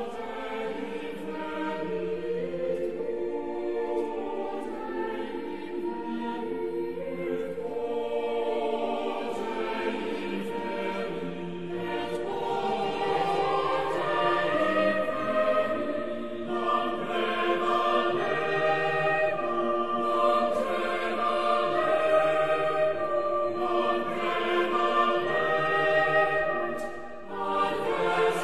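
A choir singing slow, long-held chords, with a brief drop in level near the end before the next phrase begins.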